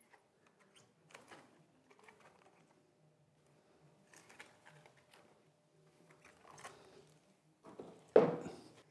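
Gloved hands handling a polypropylene drainage inspection chamber base, with faint rubbing and handling sounds, then a thud about eight seconds in as the chamber is set down on a wooden table.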